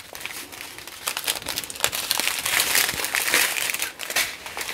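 A strip of small plastic bags of diamond painting drills crinkling as it is handled and turned over, a dense crackle that is loudest in the middle.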